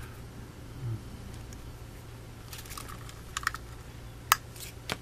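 Small plastic clicks and rustles as a plastic RC receiver box and its servo-lead plugs are handled. The clicks are scattered through the second half, the sharpest and loudest just past four seconds in, over a low steady hum.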